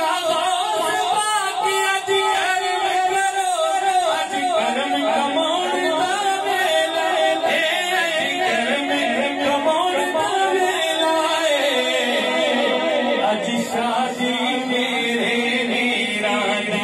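A male naat khawan singing a manqbat in praise of Ghaus-e-Azam into a microphone, his voice amplified, in long bending melodic phrases.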